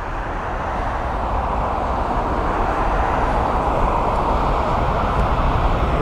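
Aircraft engine roar at the airport, growing steadily louder.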